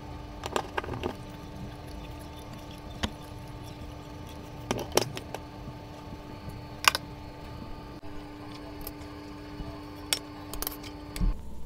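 Hand-held crank can opener cutting open a tuna can, then the metal tins being handled: scattered sharp metallic clicks and knocks. A steady low hum runs underneath and stops near the end.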